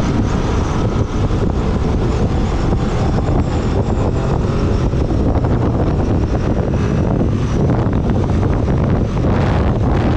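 Kawasaki ER-6n parallel-twin motorcycle engine running steadily at highway speed, about 100 to 118 km/h, heard with heavy wind noise on the handlebar-mounted microphone.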